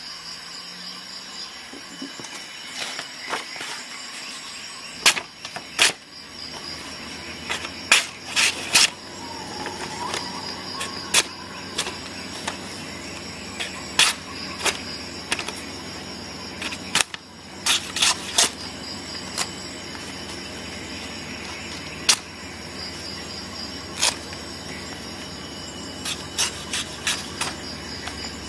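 A knife blade cutting and snicking through thin paper, with irregular sharp clicks and rustles and several louder snaps near the start and the middle. It is a sharpness test on a freshly sharpened edge. A faint steady high whine runs underneath.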